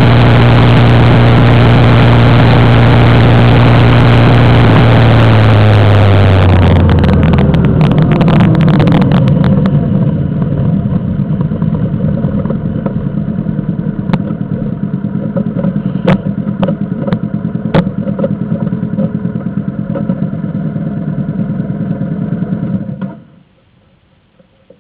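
Cruiser motorcycle engines: the nearest bike running loud and steady under way, then dropping in pitch as it slows and pulls up. After that, several motorcycles idle with a few sharp clicks, and the sound cuts off suddenly near the end.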